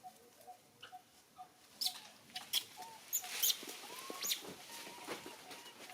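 Monkeys giving short, high squeaks, with sharp clicks or smacks clustered in the middle, over a faint short call that repeats about twice a second.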